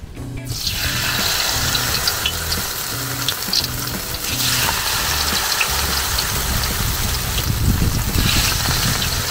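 Battered kangkong (water spinach) leaves deep-frying in hot oil, sizzling and crackling. The sizzle starts abruptly about half a second in.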